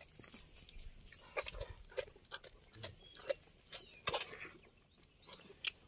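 Faint, irregular wet squirts and sucking sounds at a cow's udder as she is hand-milked while her calf suckles beside the milker's hand, with a few faint bird chirps.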